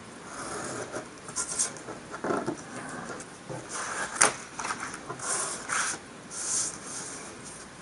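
Hobby knife scraping through card stock along a steel ruler, then a paper sheet and metal ruler being shifted and rustling on the cutting mat, with one sharp click about four seconds in.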